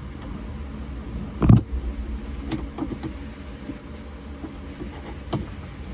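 A hand and screwdriver knocking and clicking among the wiring inside a boat's console compartment: one loud thump about a second and a half in, then a few light taps, over a steady low rumble.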